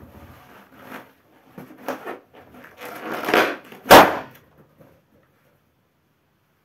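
A bare foot pressing and scuffing on a latex balloon on carpet, then the balloon bursting with one loud pop about four seconds in.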